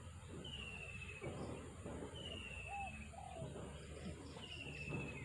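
A bird repeatedly giving a short, falling whistle, about every two seconds, with a few faint higher chirps between, over steady low outdoor background noise.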